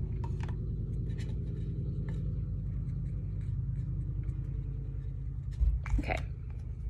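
Faint scratching and small clicks of a Sharpie permanent marker marking a plastic nasogastric tube, over a steady low hum. A short handling thump comes near the end.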